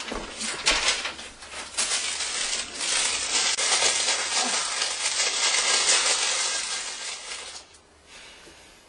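Costume fabric rustling and crinkling as clothes are handled and a gown is put on, with many short sharp crackles; it stops shortly before the end.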